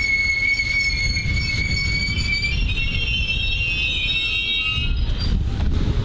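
Hamburg S-Bahn class 472 electric train running past at speed: a steady rumble of wheels on rails under a high, steady squeal that about halfway through breaks into several wavering high tones. A few clicks come near the end.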